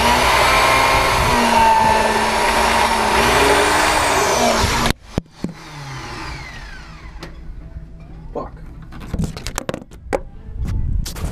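A small motor running loudly, its pitch wavering up and down, that cuts off suddenly about five seconds in; after that, scattered clicks and knocks.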